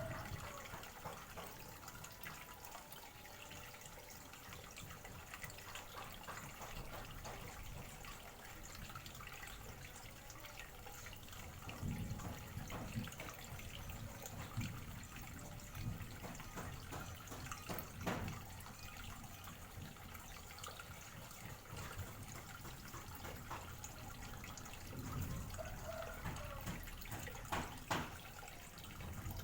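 Steady, fairly quiet trickling water with scattered drips and small clicks, and a few low bumps.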